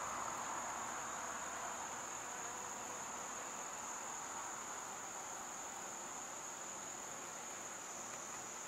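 Steady high-pitched insect chorus, like crickets trilling, holding one unbroken pitch over a faint even hiss.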